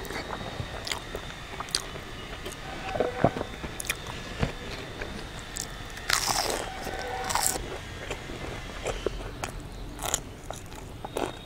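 Close-up mouth sounds of a person eating by hand: biting and chewing crunchy fried food with rice, in a run of small crunches and clicks. The loudest crunch comes about six seconds in.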